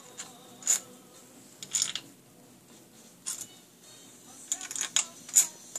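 Bolts and small metal parts clinking against each other and against the cam cover of a Harley-Davidson Evo engine as they are handled and fitted by hand: single sharp clicks a second or so apart, then a quick run of clicks near the end.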